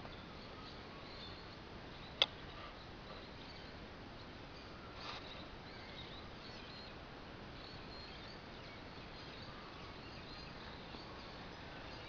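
Birds chirping faintly in the bush, many short high calls scattered over a steady background hiss. A single sharp click about two seconds in.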